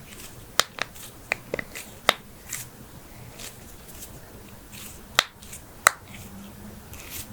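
Human joints cracking: a series of sharp pops, several close together in the first two seconds and two more around five and six seconds in.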